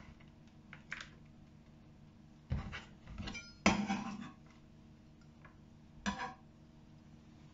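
Kitchen knife chopping Gouda cheese into cubes on a wooden cutting board: a handful of separate knocks of the blade on the board, the loudest about three and a half seconds in.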